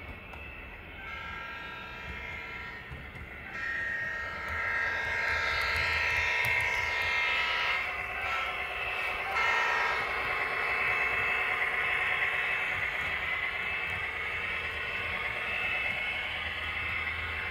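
HO-scale model diesel locomotive running on the layout's track: a steady high whine made of several held tones, louder from about three and a half seconds in and breaking off briefly twice. From about ten seconds in it becomes an even, rougher running noise.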